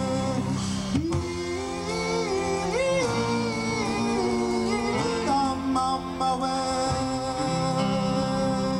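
Live band music: a man singing long held notes over electric bass and electric guitar, recorded outdoors on a camcorder microphone.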